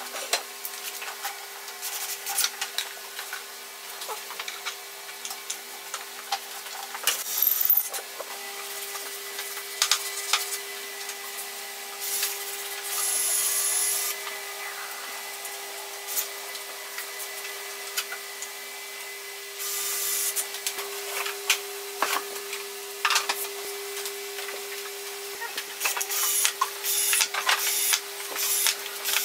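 Cordless drill driving screws into the wooden frame and hinges of a folding chair in short runs: one about two seconds long around twelve seconds in, another around twenty seconds, and several quick bursts near the end. Between them, wooden parts knock and rub as they are handled, over a steady low hum.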